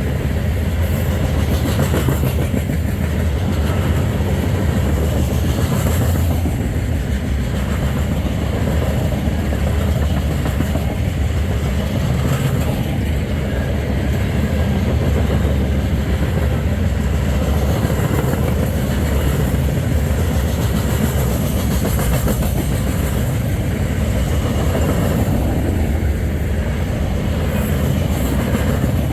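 Freight train rolling past, a steady low rumble of the cars with the wheels clacking over the rail joints.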